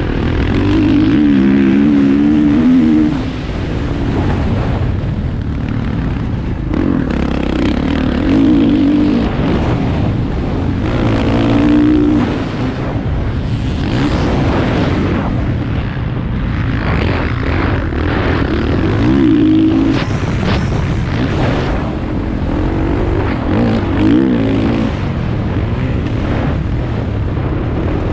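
Motocross dirt bike engine being ridden hard, revs climbing and dropping over and over as the throttle opens and closes.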